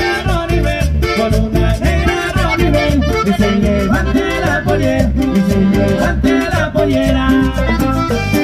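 Live Latin dance band playing: an accordion melody over bass guitar and acoustic guitar, with a steady beat from a metal scraper and drum.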